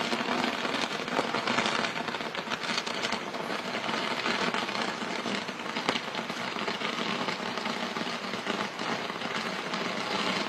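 Burning Sky Ladder fireworks: a dense, steady crackling and hissing of many small charges, with no big bangs.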